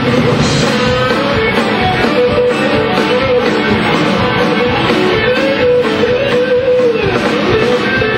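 Live country-rock band in an instrumental passage, an electric guitar playing a lead solo line over drums and bass.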